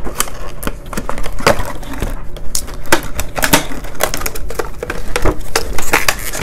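Plastic packaging crinkling and crackling in the hands as a boxed figure-and-glass set is unpacked, with many irregular clicks.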